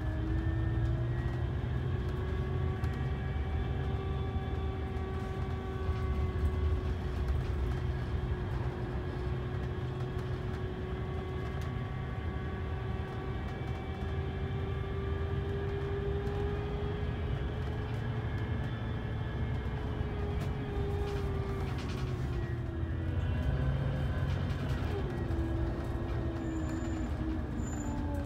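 Coach running through city traffic, heard from inside the cabin: a steady low engine rumble with a drivetrain whine that climbs slowly in pitch, then falls away about three-quarters of the way through and again near the end as the coach slows.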